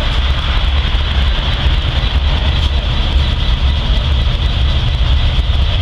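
Engines idling, from a stopped diesel freight locomotive and a tow truck: a steady low rumble with a steady high-pitched hiss above it.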